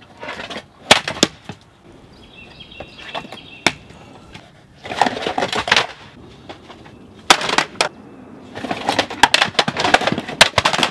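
Hollow plastic jumbo toy bricks knocking and clacking as they are pressed onto one another, then a section of the unfastened brick roof arch coming apart near the end in a longer clatter of tumbling bricks.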